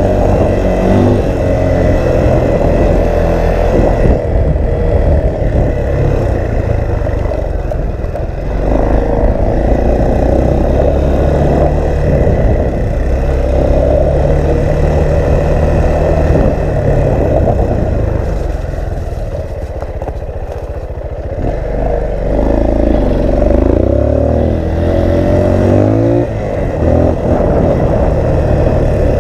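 Small off-road vehicle engine run at hard throttle up a steep hill, its pitch rising and falling as the rider works it. The engine eases off briefly about two-thirds of the way through, then picks up again. Wind buffets the helmet microphone and the machine clatters over the rough trail.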